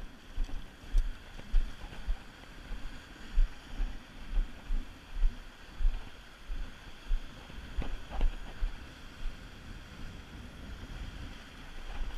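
Wind buffeting the microphone in irregular low thumps over the steady wash of sea surf on rocks, with a sharper clack about eight seconds in.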